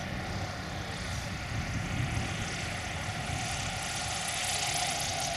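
Piper Super Cub's light-aircraft engine and propeller running steadily as the plane flies in low, growing louder toward the end.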